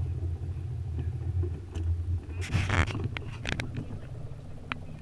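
Small boat's motor running at low speed, a steady low rumble, with a short hiss about two and a half seconds in and a few sharp clicks after it.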